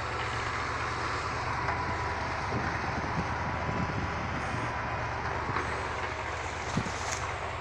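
Heavy diesel engine running steadily with a low hum, with a few light knocks in the second half.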